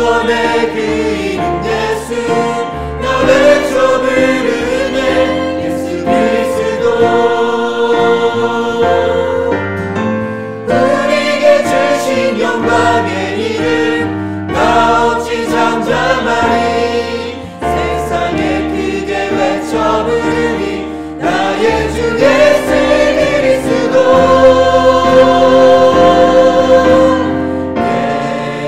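Small mixed ensemble of men's and women's voices singing a Korean worship song in several parts, over instrumental accompaniment.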